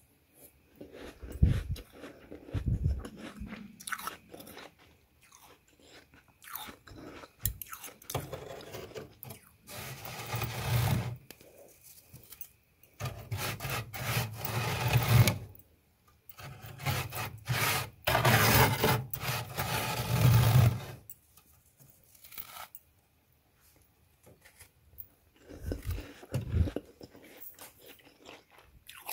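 Soft freezer frost crunching and squeaking as a hand digs into it and packs it into balls, in irregular bursts that run longest through the middle, with a short lull before a few more crunches near the end.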